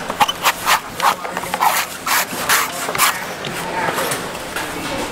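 Knife shaving the husk of a coconut in quick rasping strokes, about eight in the first three seconds, then fainter.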